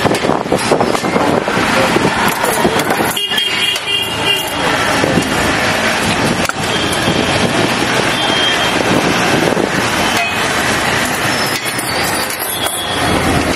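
Busy street traffic: a steady din of passing vehicles with horns honking now and then, and people talking in the background.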